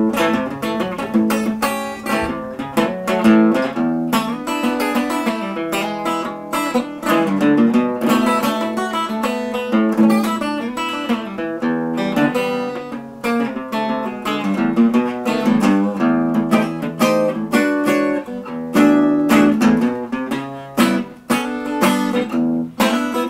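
Background music: acoustic guitar playing a steady run of plucked and strummed notes.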